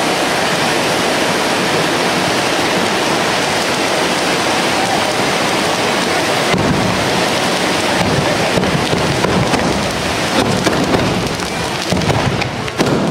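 Tezutsu hand-held bamboo-tube fireworks spraying fountains of sparks with a loud, steady rushing hiss. From about halfway the rush turns rougher, with many sharp cracks and pops scattered through it.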